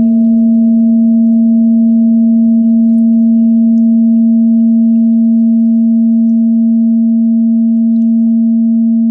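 Buddhist meditation bell ringing on after a single strike: a loud, steady low hum with a few fainter higher overtones, fading very slowly.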